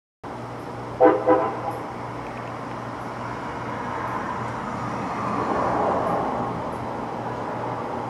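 Vehicle air horn sounding two short blasts about a second in, the loudest thing here. Then the noise of passing traffic swells and fades, over a steady low hum.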